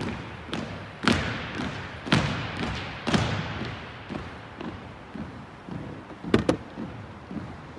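A squad of drill cadets marching in step on a hardwood gym floor, their shoes striking together and echoing in the hall. Three heavy stamps come about a second apart in the first three seconds, with lighter steps between them, and a sharp double stamp comes a little past six seconds.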